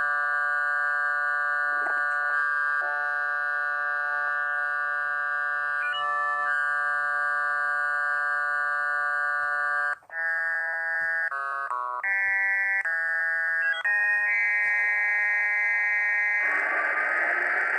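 Electronic synthesizer tones: a held chord of several steady pitches that, about ten seconds in, briefly drops out and then changes to a quicker series of shifting chords. Near the end a hissing noise with slowly rising whistling glides comes in over the tones.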